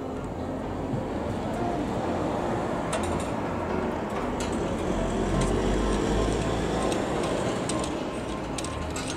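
Road traffic noise: a passing vehicle rises to its loudest with a low rumble about five to six seconds in, then eases off. A few light clicks sound over it.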